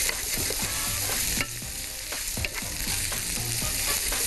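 Beef cubes, onion and celery sizzling in butter and oil in a hot frying pan as they brown and caramelise, stirred with a wooden spatula that clicks and scrapes against the pan. The sizzle is a steady hiss with scattered short knocks from the spatula.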